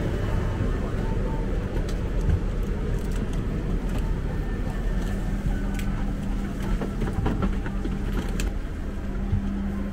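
Steady air-conditioning and ventilation hum inside the cabin of a parked Boeing 767-300ER airliner during boarding, with a low drone that strengthens about halfway through. Scattered light clicks and knocks are heard over it.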